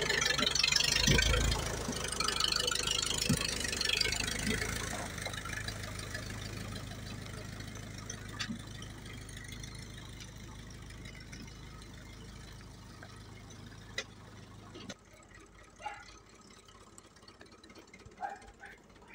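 Old tractor engine running as it passes close by, towing a laden trailer, then fading steadily as the tractor drives off up the road. Near the end only a few faint knocks and clicks remain.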